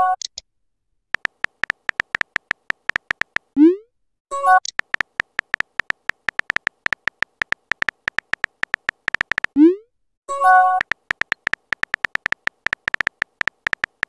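Texting-app sound effects: bursts of rapid keyboard tap clicks as messages are typed. Twice, the typing ends in a short rising swoop as a message is sent, followed about a second later by a brief chime of a few notes as the reply pops up. A chime also sounds right at the start.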